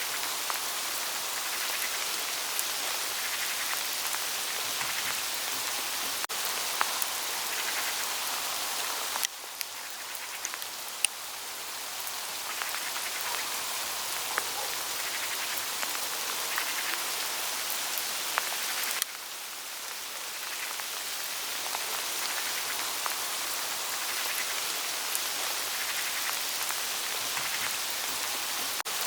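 Hail falling through autumn forest foliage and rustling on the leaves: a steady hiss of countless light ticks, with a few sharper single taps. The level drops slightly twice.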